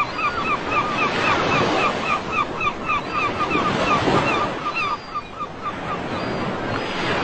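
Ocean surf washing onto a beach, with a bird calling over it in a fast run of short notes that stops about five seconds in.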